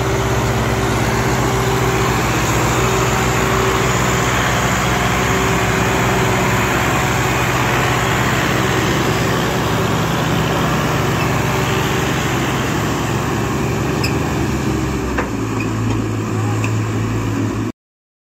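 Diesel tractor engines running steadily, with a change in the engine note about fifteen seconds in; the sound cuts off abruptly near the end.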